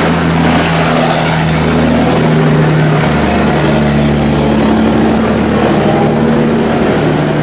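An engine running steadily, a loud low hum whose pitch steps down slightly about three seconds in.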